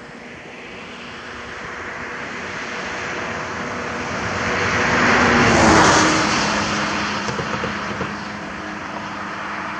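A road vehicle passing by: tyre and engine noise builds to its loudest about six seconds in, then fades, its hum dropping in pitch as it goes past.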